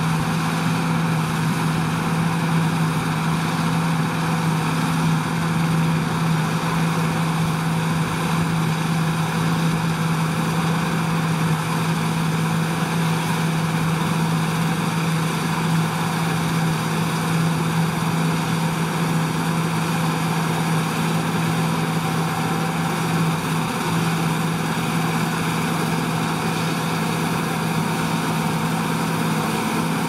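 John Deere T560 Hillmaster combine harvester running steadily as it cuts winter oats: a constant drone of engine and threshing gear with a strong, even low hum.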